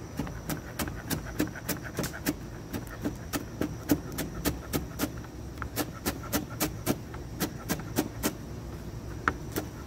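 Rapid, regular clicking, about three clicks a second, over a steady low rumble.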